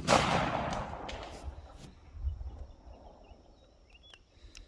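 The echo of a .45 Colt shot fading away over about two seconds, with a few sharp ticks in it. Then faint bird chirps and two light clicks near the end.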